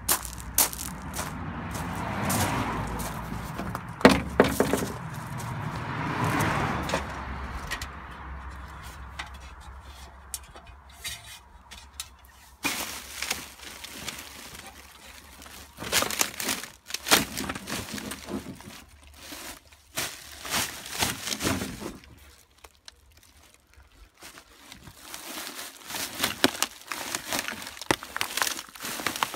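Plastic rubbish bags being handled and pushed down in an overfull wheelie bin, with irregular crinkling and crackling. Footsteps crunch on gravel at first.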